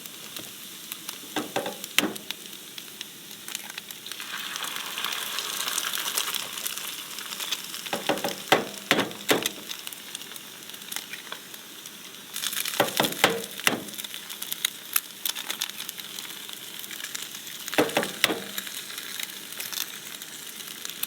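Hash browns sizzling in a pan, nearly done and golden on the bottom, with a utensil scraping and tapping against the pan now and then.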